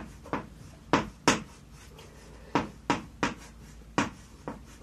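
Chalk writing on a blackboard: a string of about nine sharp taps and short scrapes as each kana stroke is set down, at an uneven pace.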